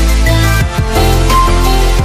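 Background electronic music with a heavy bass and a steady beat.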